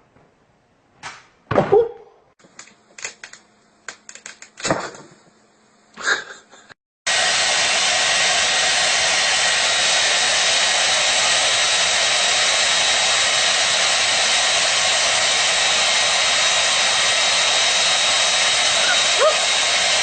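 A few short knocks and thumps, then about seven seconds in a small electric fan motor starts suddenly and runs with a loud, steady rushing of air and a faint high whine.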